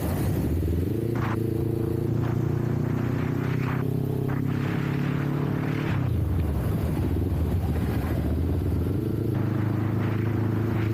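Kawasaki Ninja 400's parallel-twin engine running under way. Its pitch climbs about a second in, drops around six seconds and climbs again near nine seconds. Wind noise rushes over the microphone throughout.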